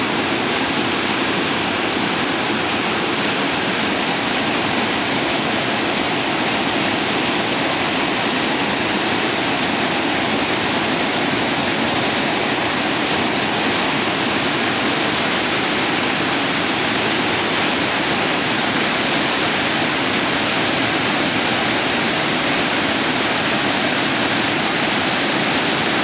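Waterfall: a steady, loud rush of water pouring down a rock face into a plunge pool, unbroken and even throughout.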